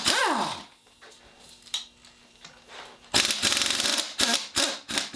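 Ratchet wrench clicking in a quick run of strokes, then a few single clicks, as a bolt on a 351M V8 engine is worked loose. A short falling squeak sounds at the start.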